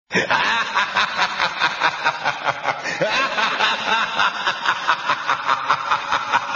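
Cackling laughter in quick, even 'ha-ha-ha' pulses, about four or five a second, starting suddenly out of silence.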